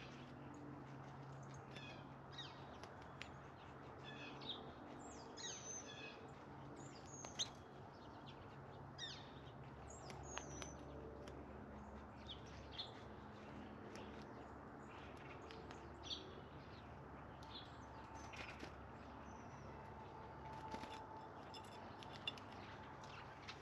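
Songbirds calling around a backyard feeder: short, sharp, falling chirps scattered irregularly throughout, over a faint low steady hum.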